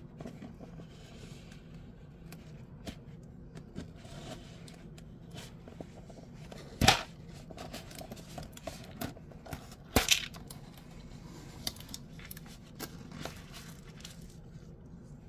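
Cardboard mailer box handled and pulled open by hand: scattered small clicks, scrapes and crackles, with two sharp, louder crackles about three seconds apart near the middle.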